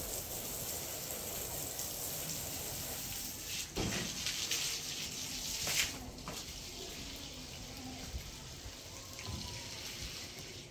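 Water running steadily, with a couple of sharp knocks partway through.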